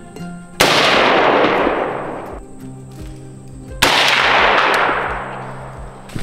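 Two scoped rifle shots about three seconds apart, each a sharp crack followed by a long echoing tail, fired as test shots at a target.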